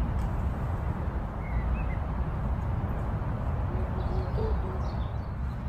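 Wind buffeting the microphone as a steady low rumble, with a few faint bird chirps.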